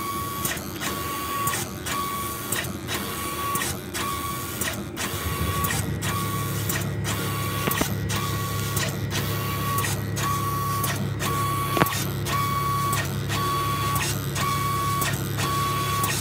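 Automatic X-Y-Z robot spray coater running a select spray gun over a circuit board: a steady hiss broken at a regular pace, with a machine beep repeating about twice a second. A low hum joins about five seconds in, and there is a single click near the end.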